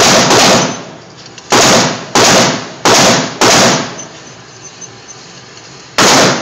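A 9mm pistol firing about seven shots, each echoing briefly off the concrete of an indoor range. There are two shots at the start, four more about half a second apart, then a single shot near the end.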